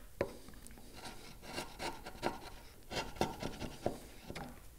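A bench chisel pared by hand through the waste wood between dovetail tails: a series of short scraping cuts with sharp clicks as the fibres give way.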